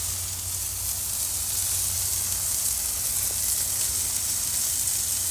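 Fat cap of a bone-in ribeye steak sizzling steadily, held edge-down with tongs on a hot grill grate to render the fat, over a low steady hum.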